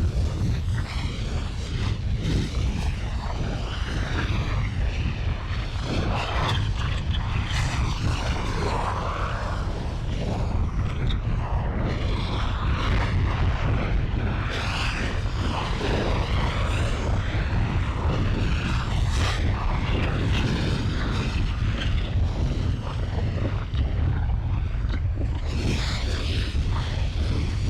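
Volcano lava and fire sound effect: a continuous deep rumble with irregular crackles and hiss over it.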